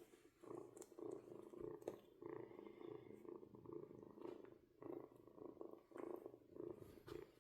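A kitten purring softly, in an even rhythm of about two pulses a second as it breathes in and out.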